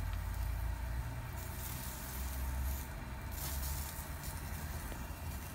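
Yakitori skewers sizzling over a commercial gas grill, with a steady low rumble underneath; the sizzle swells twice in the middle.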